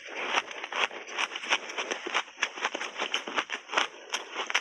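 Close-miked crunching of frozen shaved ice being chewed in big mouthfuls: rapid, irregular crackling crunches, several a second.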